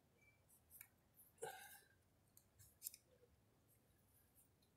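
Faint metal-on-metal clicks and scraping of a small screwdriver being worked around a piston's wrist pin retainer clip: a few light ticks, a brief scrape about a second and a half in, and a sharp click near three seconds.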